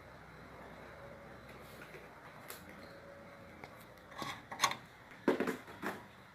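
Quiet room tone, then over the last two seconds a cluster of short clicks, knocks and rustles of small objects being handled.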